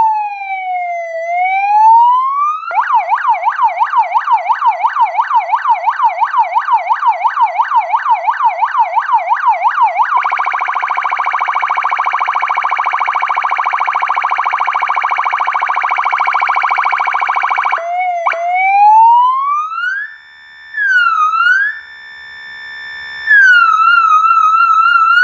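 PA300 electronic police siren cycling through its tones. First a slow falling-and-rising wail, then a fast yelp of about four sweeps a second, then a steady buzzing horn tone for several seconds. A rising sweep follows, then short stepped tones and a quick warble near the end.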